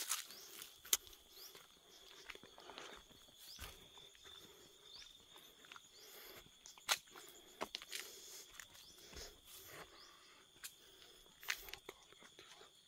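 Footsteps crunching through dry grass and brush, with scattered sharp snaps, the loudest about a second in, near seven seconds and near eleven and a half seconds. A thin steady high tone runs underneath.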